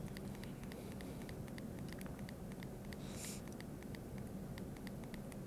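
Studio room tone: a low steady hum and hiss with faint, rapid regular ticking several times a second, and one brief soft hiss about three seconds in.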